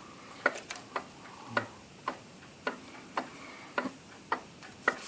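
Mechanical clock ticking steadily, about two ticks a second.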